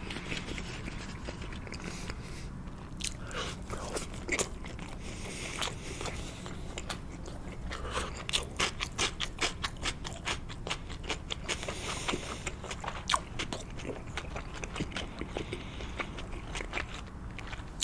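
Close-miked chewing of imitation crab stick sushi: a run of small wet clicks and smacks from the mouth, quickening in the middle, over a steady low hum.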